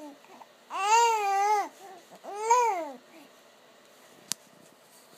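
Baby babbling: two drawn-out, high vowel sounds that rise and fall in pitch, about a second in and again at about two and a half seconds. A single sharp click near the end.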